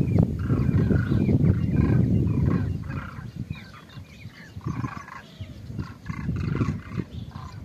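A large flock of birds calling in flight: many short, overlapping calls repeating throughout. Heavy wind rumble on the microphone is the loudest sound for the first two and a half seconds, then eases.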